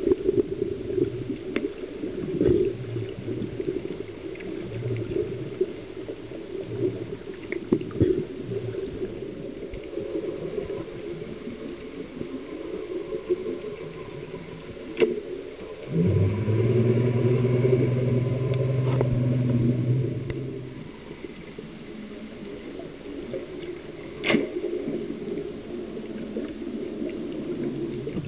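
Underwater sound picked up by a camera in its housing on a freediving dive: a steady watery rumble with scattered clicks and knocks. About halfway through, a steady low hum comes in for about five seconds, then fades.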